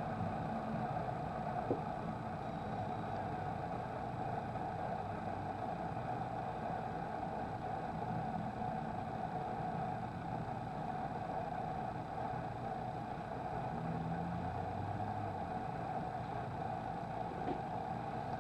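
Steady background rumble and hiss with no distinct events, apart from a faint click about two seconds in.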